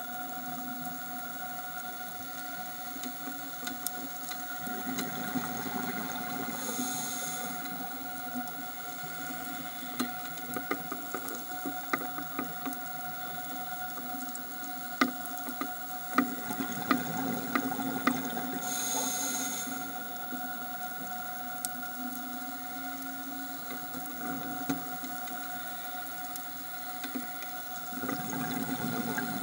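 Underwater sound of a scuba diver breathing through a regulator: a low rush of exhaled bubbles followed by a short hiss of inhalation, twice, about twelve seconds apart. Scattered sharp clicks and crackles from the reef run throughout, over a faint steady whine.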